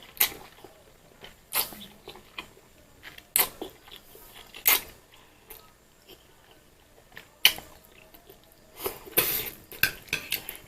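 A person chewing a mouthful of Indomie Mie Goreng green-chili fried instant noodles, with short louder mouth noises every second or two.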